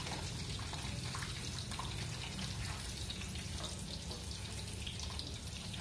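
Hot oil in a wok sizzling steadily around deep-fried tofu pieces just after the flame has been turned off, with a few faint taps and scrapes of a slotted spatula lifting the tofu out.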